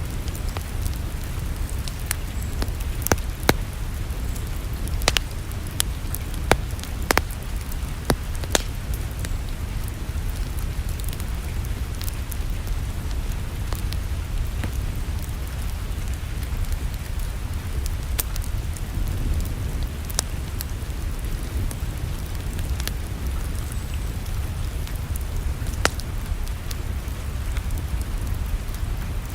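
Wood fire crackling in a fireplace: scattered sharp pops, several close together in the first few seconds and another near the end, over a steady low rumble of the flames.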